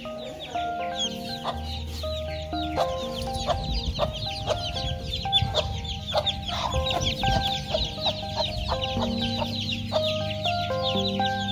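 Baby chicks peeping without pause, a dense stream of short, high, falling chirps, over background music of held melody notes and a bass line.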